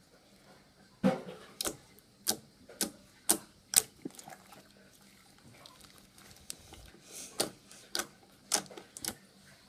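Slime being squeezed and pressed by hand, giving sharp pops about twice a second: six between about one and four seconds in, then a pause, and four more near the end.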